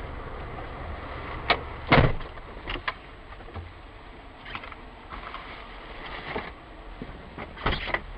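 Sounds inside a stopped car: a few sharp knocks and clicks, the loudest about two seconds in and another pair near the end, over a low steady rumble.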